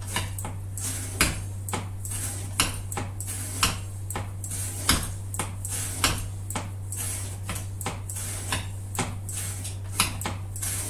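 A CPM 125V steel knife blade making repeated cuts in an edge-retention cutting test, each cut a short, sharp click or knock, at roughly one to two a second.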